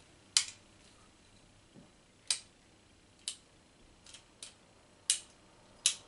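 Unloaded .45 single-action revolver's hammer and lockwork clicking as the hammer is worked through its notches: about seven sharp metallic clicks at uneven intervals, the loudest about half a second in and twice near the end.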